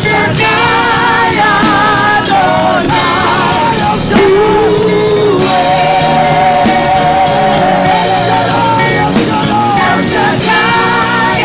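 Live gospel worship song: a woman singing lead into a microphone over an amplified band, holding one long wavering note about halfway through.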